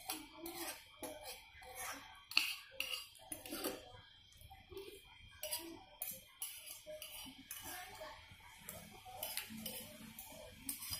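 Metal spoon scraping and clinking against a plate as rice is scooped up, in short irregular clinks about once or twice a second.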